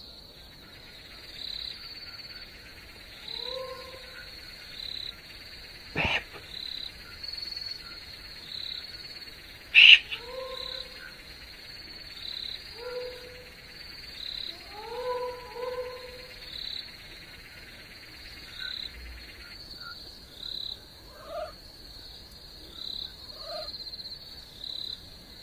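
Night insects chirping in a steady high pulse, about one and a half chirps a second, over a constant high hiss that stops about three-quarters of the way through. An animal gives short rising calls in small clusters, and there are two sharp clicks, the louder about ten seconds in.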